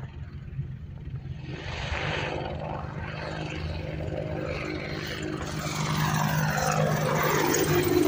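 AH-64 Apache helicopter flying low and approaching overhead: the steady sound of its rotor and twin turboshaft engines grows louder through the clip.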